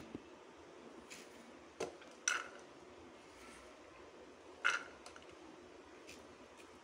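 Handfuls of diced vegetables dropped into an empty aluminium pressure cooker: a few short light taps and clatters on the metal bottom, the loudest about two seconds in and again near five seconds, with quiet between.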